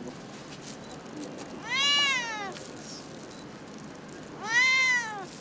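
Domestic cat meowing twice, about two and a half seconds apart, each meow rising then falling in pitch, while it is held and brushed during grooming.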